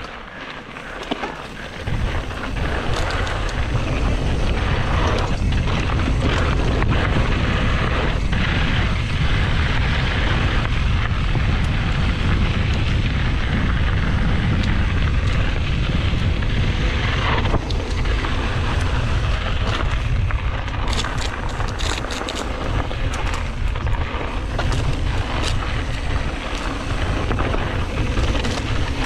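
Wind buffeting the microphone of a camera on a moving mountain bike, a heavy steady rumble that swells about two seconds in, mixed with the hiss of tyres on dirt. Sharp clicks and knocks of the bike over rough trail come through, most of them in the second half.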